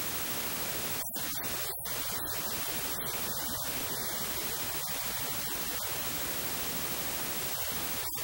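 Steady static hiss, like white noise, filling the whole range at an even level with no speech or music.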